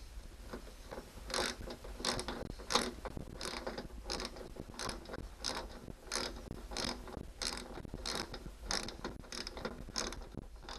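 Socket ratchet clicking in regular strokes, about one and a half a second, as a hex screw is tightened clockwise with a number 10 socket.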